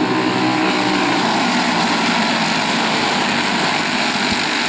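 A pack of racing karts with Briggs & Stratton Animal single-cylinder engines running at speed together, a steady blended engine sound.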